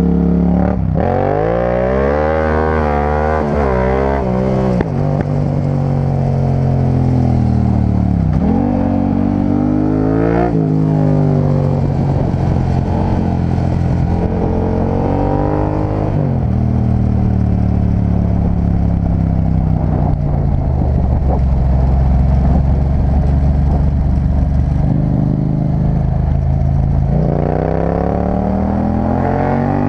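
Yamaha MT-07's 689 cc parallel-twin engine heard from onboard while riding, rising in pitch under throttle several times and dropping back between, with a steadier, slowly falling stretch in the middle.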